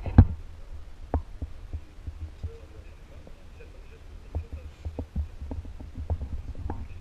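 Irregular low thumps and knocks over a steady low hum, with a loud double knock at the start.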